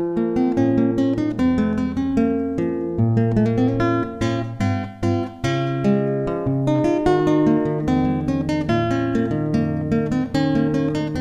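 Acoustic guitar music with quick repeated strums and plucked notes, starting abruptly.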